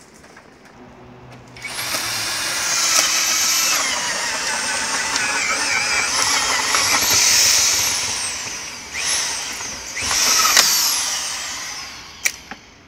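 Corded power drill boring into the wooden wall boards behind removed shingles, cutting an access hole for blowing in cellulose insulation. The motor runs for several seconds with its pitch wavering under load, stops, gives a short burst, then runs again and winds down with a falling whine, followed by a single click.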